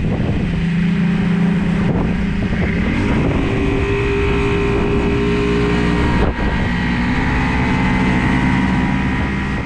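Outboard motor of a bass boat running at speed on the water, its pitch rising about three seconds in, with rushing wind and water noise over it.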